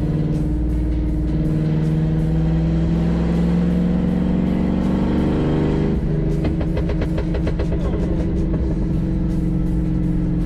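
Chevrolet 305 small-block V8 running through an open Y-pipe with no muffler, heard from inside the car. It accelerates from about 2,200 to 3,000 rpm, rising steadily in pitch for about six seconds, then the throttle is lifted. On the overrun the unmuffled exhaust crackles and pops for a few seconds.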